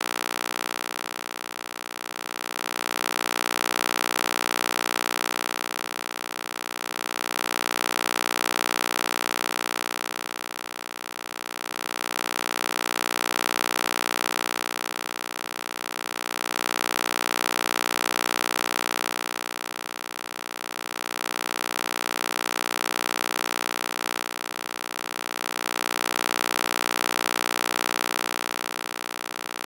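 Synthesized EMDR stimulation sound: a steady electronic hum of many stacked tones, swelling and fading about every four and a half seconds.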